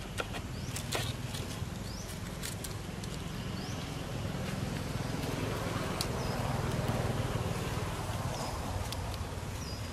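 Outdoor ambience: a steady low rumble that swells a little past the middle, with a few sharp clicks and several short high chirps.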